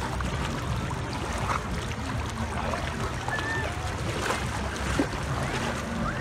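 Water sloshing and splashing around a dog swimming in shallow water, with wind on the microphone and a low steady engine drone underneath.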